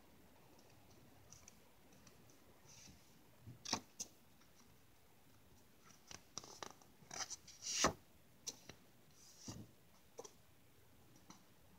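A stack of paper index cards being handled and flipped: scattered short rustles and taps of card against card, coming thickest through the middle, the loudest just after halfway.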